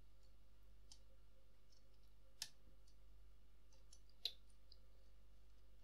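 Faint taps and clicks of Lego plastic as a minifigure is pushed into a ride's ring, with two sharper clicks about two and a half and four seconds in.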